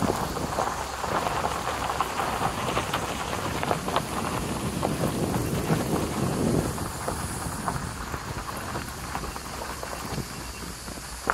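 Suzuki SX4's tyres rolling slowly over a loose gravel and stone track, a steady crackle and crunch with small stones clicking and knocking under the wheels. A louder low rumble swells about five seconds in and fades a second and a half later.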